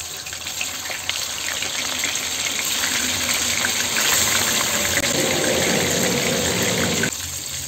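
Pieces of salt-and-turmeric-marinated rohu fish frying in hot mustard oil in a kadai, sizzling and crackling. The sound builds as more pieces go into the oil and falls off sharply near the end.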